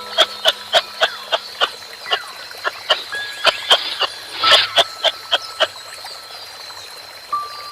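A rapid series of short, sharp animal calls, about three or four a second, that stops after about five and a half seconds, over a faint steady high tone.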